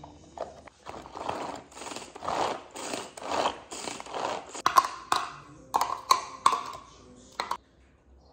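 Hand-powered mini food chopper being worked in repeated strokes, a rasping whir with each one, about six strokes roughly half a second apart, then shorter strokes with sharp plastic clicks toward the end.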